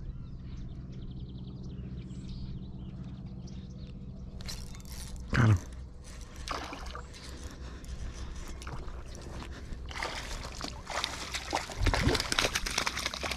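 Water sloshing and splashing, growing busier over the last few seconds, as a hooked bass thrashes at the surface while being landed. There is a low steady hum at the start and a brief loud whoosh about five seconds in.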